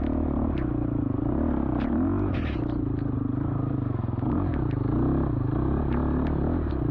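Off-road motorcycle engine revving up and down over and over, with scattered sharp clicks and knocks and a brief hiss about two and a half seconds in.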